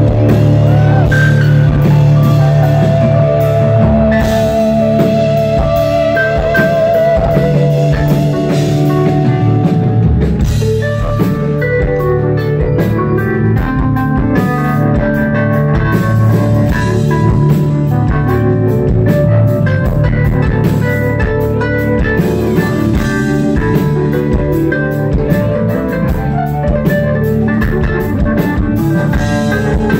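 Southern rock band playing live in an instrumental passage: electric guitar over a drum kit. A few seconds in there is a held, wavering note.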